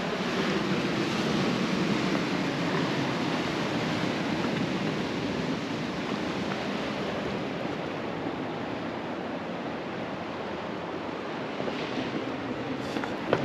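Steady rush of ocean surf on a rocky shoreline mixed with wind on the microphone, a little louder in the first few seconds. A couple of footsteps on rock near the end.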